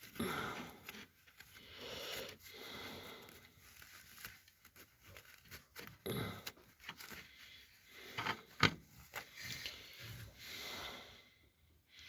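Faint rustling handling noises with scattered light clicks and one sharper click about two thirds of the way through, as engine parts are handled close up.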